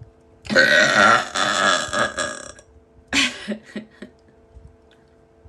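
A woman's long, loud belch lasting about two seconds, followed by a shorter, briefer burst about half a second later.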